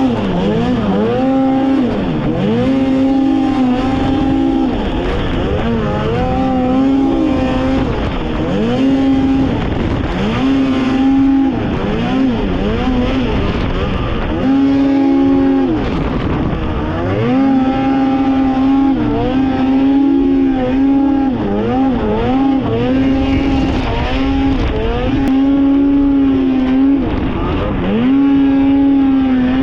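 Snowmobile engine running hard under throttle. Its pitch holds high for a second or two, then drops and climbs back again and again as the throttle is let off and opened.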